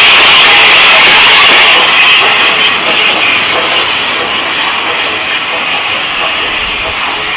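Steam locomotive letting off steam: a loud, steady hiss that eases after about two seconds and keeps slowly fading.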